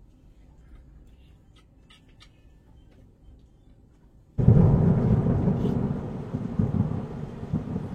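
Quiet with a few faint ticks for about four seconds, then suddenly strong snowstorm wind, loud and gusty, buffeting the microphone with a low rush.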